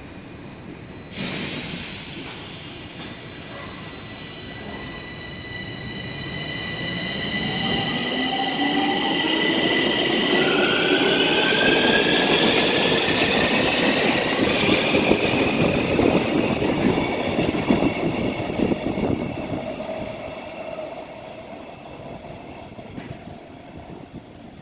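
Bombardier metro train pulling out of the station. About a second in there is a sudden loud hiss, then the traction motors' whine rises steadily in pitch as the train speeds up, with wheel and rail noise swelling and then fading as it moves away.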